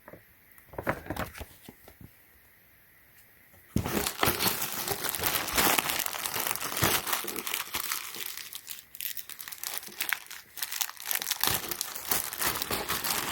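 Plastic packaging being handled and pulled open: a few light rustles about a second in, then dense, continuous crinkling from about four seconds in.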